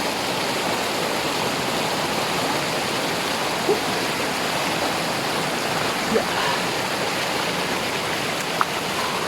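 Steady rushing of fast-flowing water in a mountain stream.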